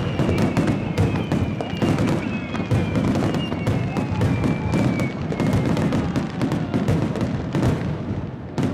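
Finale barrage of aerial firework shells bursting in quick succession: dense, irregular bangs and crackling over a low rumble. In the first half a faint high tone slides slowly downward.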